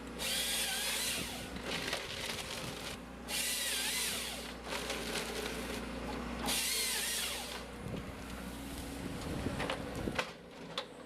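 A timber harvester's saw cutting through logs three times, each cut lasting a second or so, over the machine's steady engine hum, with a few sharp knocks near the end.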